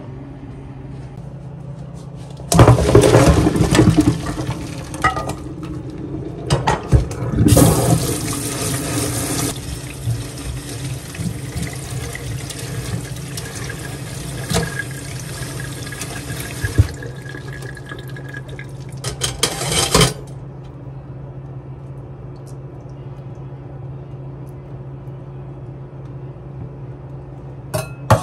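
Kitchen pull-down spray faucet running into a stainless steel sink over boiled eggs being cooled and peeled. It comes in a couple of gushes, then runs steadily for about seven seconds, gives a short last burst, and is shut off.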